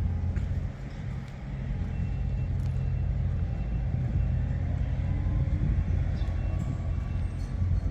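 Rice combine harvester running with a steady low rumble, with a few light clicks over it.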